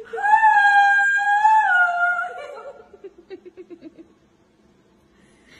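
A domestic cat's long, drawn-out meow lasting about two seconds, dipping slightly in pitch at the end. It is followed by a short, quick stuttering sound that falls in pitch.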